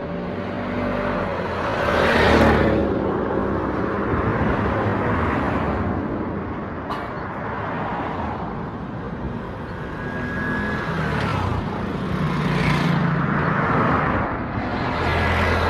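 Road traffic: motor vehicles running and passing, their engine noise swelling as they come close about two seconds in, again around twelve seconds and near the end.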